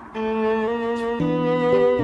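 Background music: held, melodic notes changing in steps, with a lower bass line coming in just over a second in.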